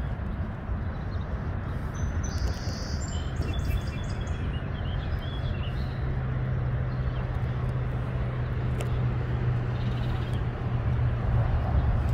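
Outdoor ambience: a steady low rumble throughout, with a steady low hum joining about halfway, and birds chirping a few seconds in.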